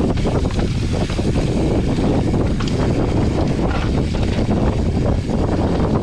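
Wind buffeting the microphone of a mountain bike descending a rough downhill trail, with steady tyre and drivetrain noise and frequent short rattles and knocks from the bike over the terrain.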